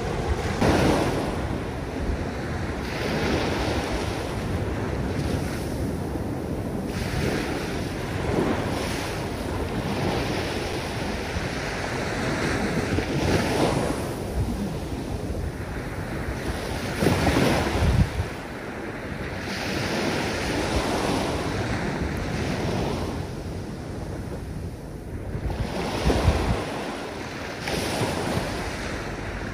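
Small waves breaking and washing up a coarse sand beach in slow swells, with wind buffeting the microphone in gusts.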